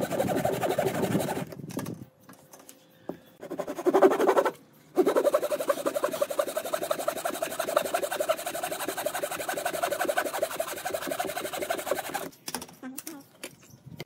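Handsaw cutting through a wooden board in quick back-and-forth strokes, with two short pauses in the first five seconds and stopping about twelve seconds in. A few light wooden knocks follow near the end.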